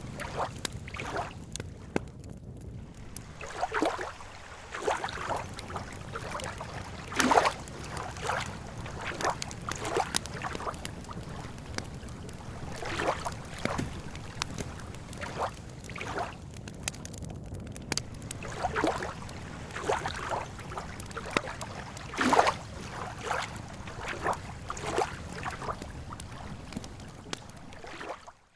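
Lake water lapping at the shore in small, irregular splashes every second or so, over a steady low rumble. It cuts off suddenly at the very end.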